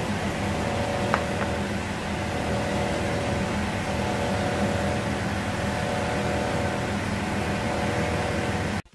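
A steady mechanical hum with a few steady tones in it, and a light click about a second in; it cuts off suddenly near the end.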